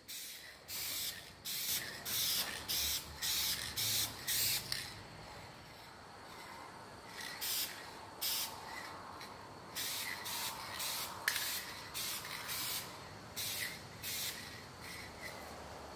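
Aerosol spray paint can sprayed in short hissing bursts, many in quick succession, with a pause of a couple of seconds midway before another run of bursts.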